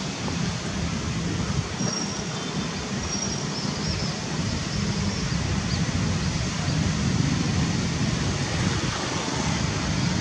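Steady low rumble of distant road traffic, with a few faint high chirps about two to three seconds in.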